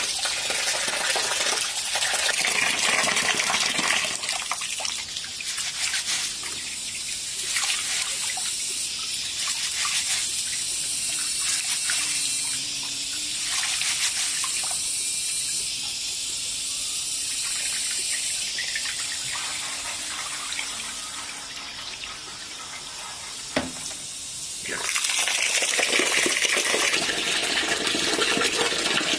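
Water running and splashing, swelling and easing in strength, as when food or utensils are rinsed under a flowing tap; one sharp knock near the end.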